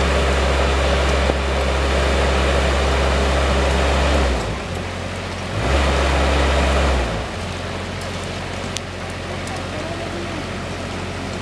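Heavy diesel engine of the crane truck running at raised revs with a steady low drone, dropping back about four seconds in, rising again briefly, then settling to a lower idle about seven seconds in as the lifted load is set down.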